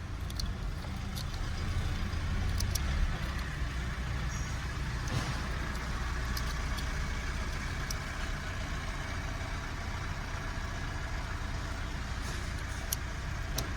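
Steady low rumble of background vehicle noise, with scattered small clicks and taps as plastic wiring-loom connectors are handled and pushed together.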